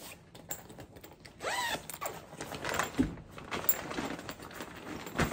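Side snaps of a Thirty-One Fresh Market Thermal tote being popped open while the bag's fabric rustles, with two sharp clicks, one about three seconds in and one near the end.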